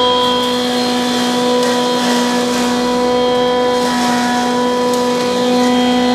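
Electric masala grinding machine running steadily at full speed, a loud even hum and whine from its motor, as dry roasted masala ingredients are fed into its steel hopper for grinding.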